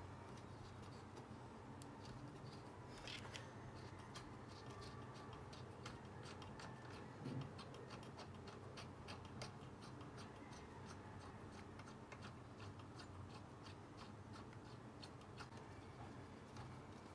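Faint rapid clicking of a ratchet wrench fitted with a hex (Allen) socket, turning in the engine mounting bolts, the ticks coming in runs that grow denser in the second half.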